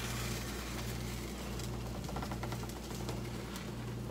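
Plastic spatula scraping lightly under a sticking pancake in a frying pan, over a steady low hum that pulses on and off about once a second.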